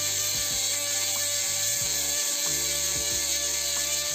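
BG W-05 cordless pen-style mini-grinder with its bit cutting into stone: a steady motor whine with a gritty grinding hiss.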